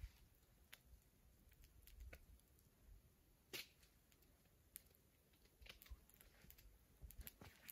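Near silence broken by faint, scattered crackles and pops from a small wood fire, about one every second, the strongest about three and a half seconds in.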